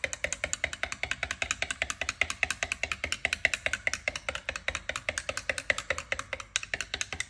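Metal teaspoon stirring coffee fast in a ceramic mug, clinking against the inside of the cup in a rapid, even run of about a dozen clinks a second.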